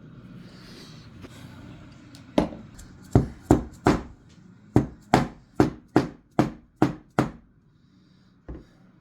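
A small hammer tapping a pin punch about a dozen times, driving the extractor pin out of a Marlin Model 60 rifle bolt; the sharp taps start a couple of seconds in, come two or three a second, and end with one lighter tap near the end.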